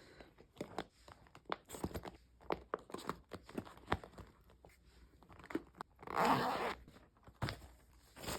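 Scattered short clicks, scrapes and rustles of objects being handled, with one heavy breath about six seconds in from a woman labouring at the task 37 weeks pregnant.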